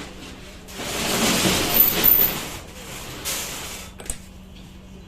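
Metal scraping and rattling as the worn bearing is worked off the shaft of a 1 hp Gazi water pump motor: one long spell of about two seconds, a shorter one, then a single sharp click.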